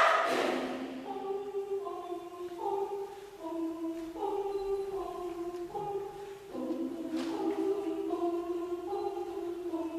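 Choir singing a cappella, holding sustained chords whose notes change together every half second or so. A loud crowd noise dies away in the first second.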